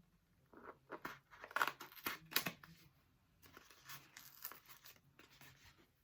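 Toy packaging being torn open and handled: irregular tearing and rustling, in two spells with a short pause near the middle.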